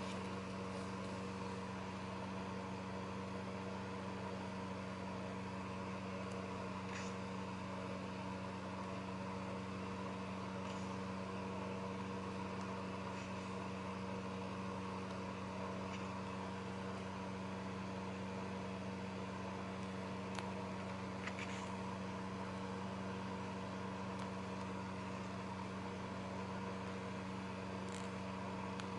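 A steady hum from a motor or electrical appliance, holding the same pitch throughout, with a few faint rustles and ticks of paper pages being turned.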